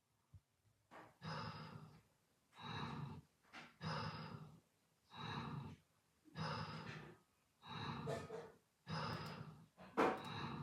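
Snoring: a quick run of about eight noisy breaths, one a little over every second.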